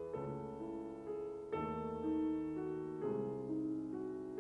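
Background music: slow piano, with a new chord struck about every second and a half and left to ring.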